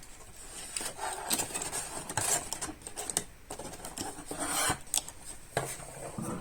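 Hands handling packaging and small hardware: a plastic bag rustling, with scattered light clicks and rattles of screws and wall plugs.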